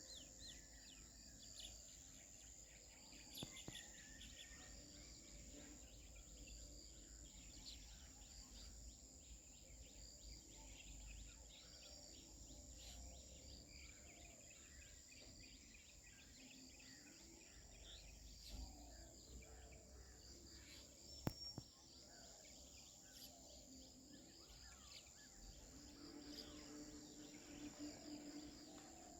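Faint outdoor morning ambience: scattered bird chirps over a steady high-pitched insect drone, with a low rumble underneath. A single sharp click about two-thirds of the way through.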